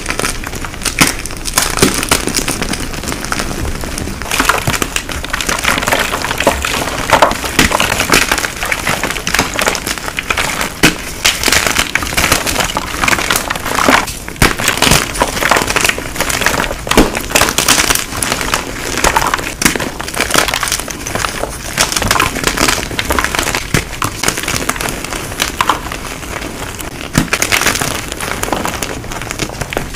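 Blocks of gym chalk being crushed and crumbled: a dense, irregular run of crisp crunching cracks with powdery crumbling between them, briefly easing about 14 seconds in.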